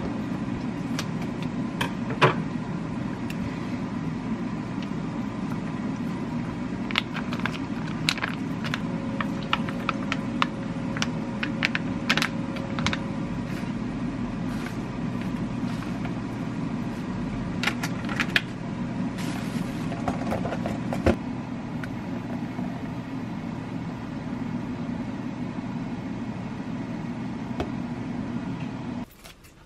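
A steady mechanical hum, with scattered light clicks and taps from food and utensils being handled on a wooden cutting board; the hum cuts off suddenly near the end.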